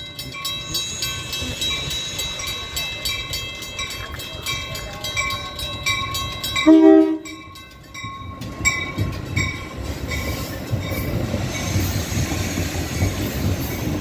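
Push-pull commuter train arriving at a station. A rapid, even ringing runs for the first six seconds or so, then the train horn gives one short, loud blast about seven seconds in, and the bilevel passenger cars then roll past with a building rumble.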